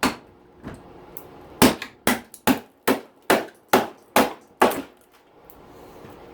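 Hammer blows knocking at a clipped-on part of a dishwasher: a knock at the start, then a quick run of eight sharp strikes, a little over two a second, that stops suddenly near the end.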